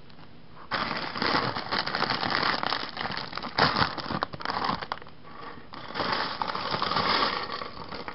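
Clear plastic bag crinkling as it is shaken out, with small plastic Lego Bionicle pieces clattering onto a wooden table. It starts under a second in, pauses briefly about five seconds in, and comes again.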